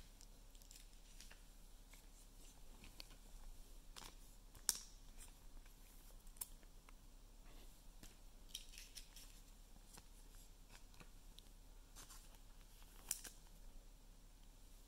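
Near silence: quiet room tone with a few faint, sharp clicks from trading cards and foil card packs being handled on a tabletop.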